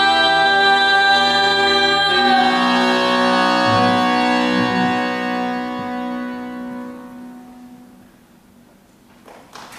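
Accordion and double bass hold the closing chords of a Russian folk song, with the woman's voice sustaining the last sung note at the start. The chord shifts about two seconds in, then the music slowly dies away, and applause breaks out at the very end.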